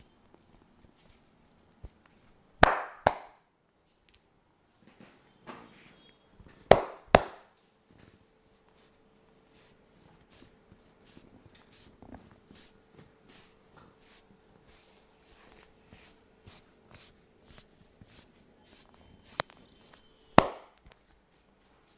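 Hands striking the body in a vigorous percussive massage: two loud, sharp slaps about 3 s in, two more about 7 s in and one near the end, with a run of softer, quicker pats, about two a second, in between.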